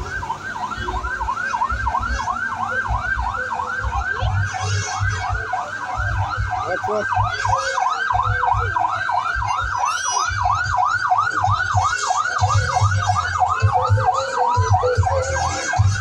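Vehicle siren on a fast yelp, sweeping up and down about three to four times a second without a break, over intermittent low thumps.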